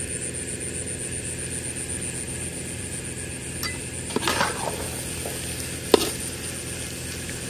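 Metal spoon scraping and clinking against a cooking pot while the curry is stirred, with a few scrapes about four seconds in and one sharp clink about six seconds in, over a steady background hum.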